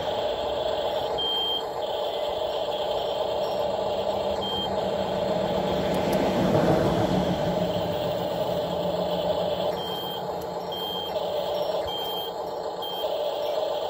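Small electric motors of a 1/16-scale RC excavator whining, cutting in and out as it slews and tracks, with short high beeps several times at uneven intervals. A louder swell of road noise about halfway through.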